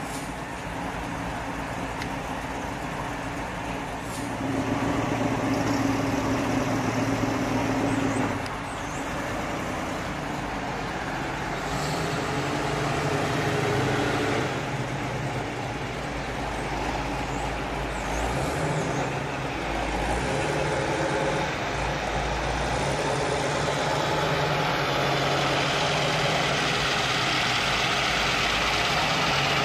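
Classic muscle cars and a hot rod driving slowly past one after another, their engines running at low speed. The sound swells as each car passes and is loudest near the end.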